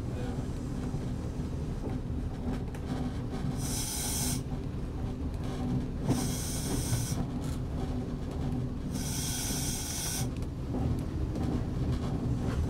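Class 122 single-car diesel railcar running slowly in the cab with a steady low rumble. Three separate hisses, each about a second long, come from air being let into the vacuum brake as the car slows for a stop.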